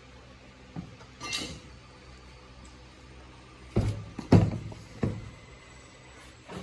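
Large round LED ceiling light being handled and set down face-down on a bench: a brief rustle, then three knocks and thumps in quick succession about four seconds in, the middle one loudest.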